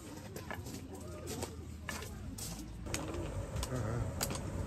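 Faint bird calls over a low background hum, with a few light clicks and muffled voices.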